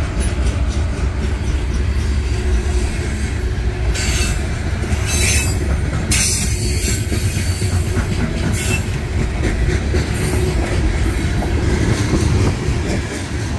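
Loaded coal hopper cars of a CSX freight train rolling past at close range, a steady heavy rumble of steel wheels on rail. Spells of high-pitched wheel squeal rise over the rumble about four seconds in, again just after six seconds, and briefly near nine seconds.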